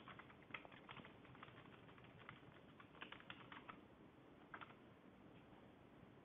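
Faint typing on a computer keyboard, in short quick runs of keystrokes, mostly in the first four seconds, with a last couple of taps a little later.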